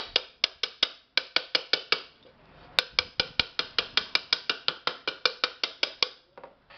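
Claw hammer tapping lightly and quickly on the rim of a metal pressure-cooker lid, about five or six ringing taps a second, to straighten the slightly bent lid. The tapping breaks off briefly twice in the first three seconds, then runs on steadily and stops shortly before the end.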